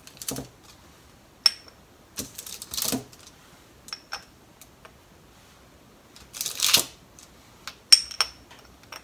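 Scattered light clicks and taps of hardened candy-coated strawberries on toothpicks being picked up and set into a ceramic bowl, a couple of them bright clinks with a short ring, with two brief rustles of handling.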